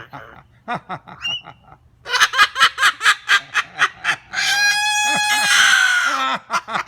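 Pet talking bird giving a quick run of cackling, laugh-like calls, then one long high call of about two seconds that drops in pitch at the end.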